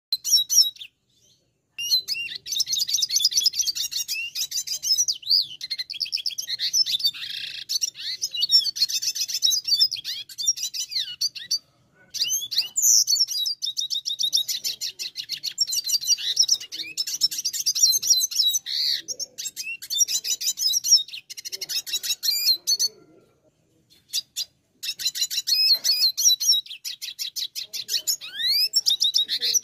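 Red siskin singing in long runs of rapid, high twittering and trills. The song breaks off briefly about a second in, near the middle, and again about three quarters of the way through.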